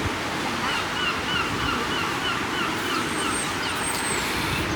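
A gull calling in a quick series of short, evenly repeated notes, about three or four a second, stopping near the end, over a steady wash of surf-like noise.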